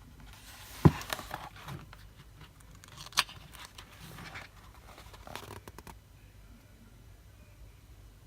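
Paper pages being handled and turned, rustling, with sharp taps about a second in and again about three seconds in.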